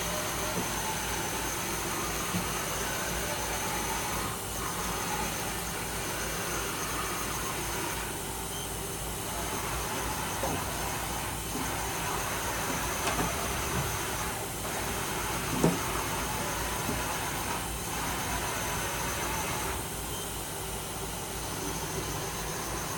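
2010 Southwestern Industries Trak LPM CNC vertical machining center running its axes through a series of traverse moves: a steady machine hiss and hum that changes every few seconds as moves start and stop, with a few small clicks.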